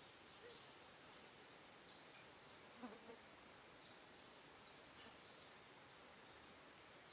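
Near silence: faint outdoor ambience, a soft hiss with scattered faint high chirps, and one brief faint low call just under three seconds in.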